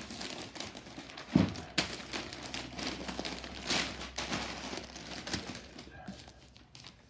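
Masking paper and tape crinkling and rustling as they are pressed and smoothed by hand over a motorcycle helmet, with one sharp knock about a second and a half in.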